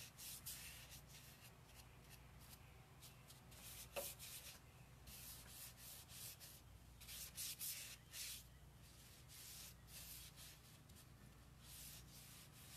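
Faint, irregular rubbing strokes of a cloth rag wiping dark furniture wax over a chalk-painted wooden hutch door, with one light knock about four seconds in.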